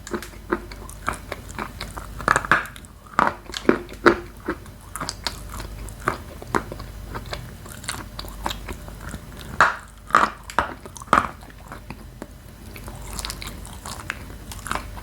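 Close-up crunching and chewing of dry edible chalk: sharp, crisp bites come in irregular clusters, with softer chewing between them.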